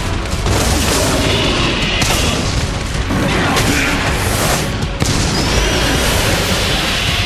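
Loud booming impact and explosion sound effects over background music, with sudden hits about two and five seconds in.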